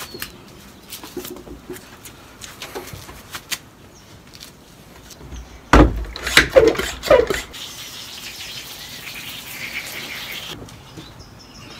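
A hand-pump garden sprayer is pumped with a few loud, squeaky strokes. Then comes a steady hiss of water spraying onto sandpaper clamped to glass, which stops abruptly shortly before the end.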